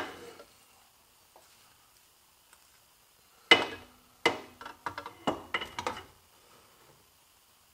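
Sharp metallic clanks and clinks with a short ring, a cluster of about five a few seconds in after a quiet stretch, as the metal parts of a car's rear axle shaft and its hardware are handled and fitted into the axle housing.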